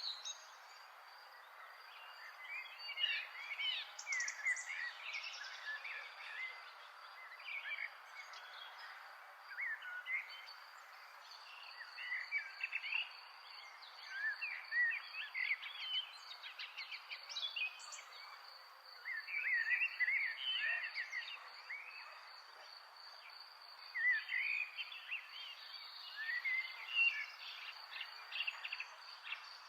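Small birds chirping and twittering in short bursts every few seconds, over a steady high pulsing trill and a soft background hiss.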